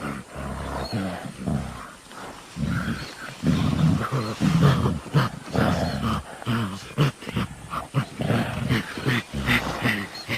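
Gorilla sound effect: a rapid run of short, low vocalizations, one after another, with sharp clicks mixed in.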